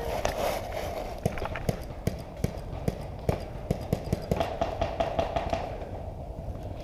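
Paintball markers firing: a run of sharp pops, about four a second, from about a second in until near the end.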